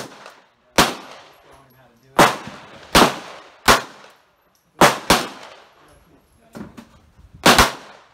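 Bersa Thunder 380 CC pistol firing .380 ACP rounds: about nine sharp shots at uneven spacing, some in quick pairs, each trailing a short echo. A few fainter shots come in between.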